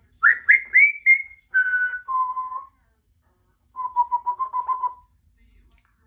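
Congo African grey parrot whistling: four quick rising chirps, then two held notes stepping down in pitch, and after a short pause a fast warbling trill on a lower note.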